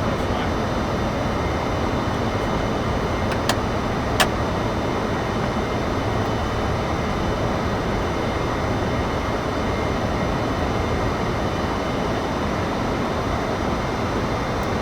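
Steady flight-deck noise of a Boeing 747-400 freighter in the climb: an even rush of airflow and engine noise. Two sharp clicks come about three and a half and four seconds in.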